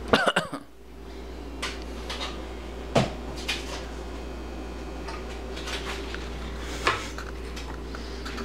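Clicks and knocks from handling a Rival 18-quart roaster oven while its temperature dial is set for preheating: a quick cluster of clicks at the start, then single sharp knocks about three and seven seconds in, over a steady low hum.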